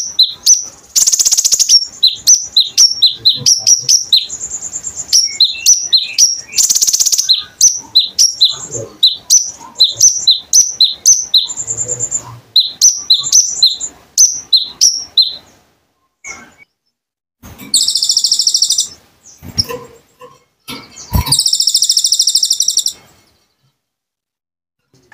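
Konin songbird singing: a fast run of high, sharp chirps, several a second, broken by loud harsh buzzy trills. The chirping thins out after about fifteen seconds, leaving two longer buzzy trills.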